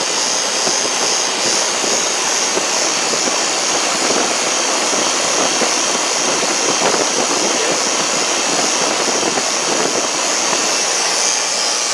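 Rheem 5-ton R22 air-conditioning condensing unit running: its condenser fan blows a steady rush of air up through the top grille. The system is running on its original R22 charge, left to stabilize before pressures, superheat and subcooling are read.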